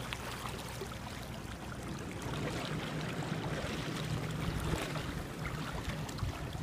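Shallow river water running steadily over a stony bed, with low wind rumble on the microphone.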